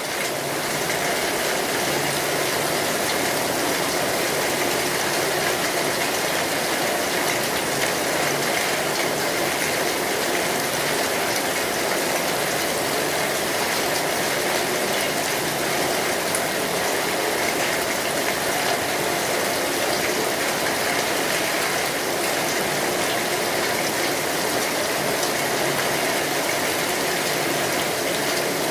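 Steady rain falling on an umbrella, a dense, even hiss of drops with no let-up, rising slightly about half a second in.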